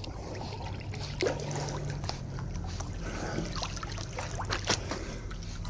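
Miniature schnauzer paddling through swimming-pool water: soft lapping and small, irregular splashes from its paws, over a steady low hum.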